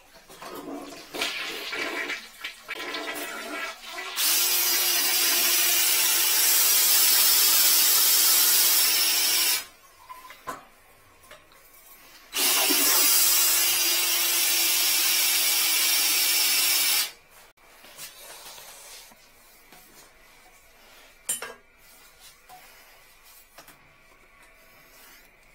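Electric drum drain-cleaning machine spinning an 8 mm cable, run twice for about five seconds each: a loud rushing noise over a steady hum, switched on and off abruptly.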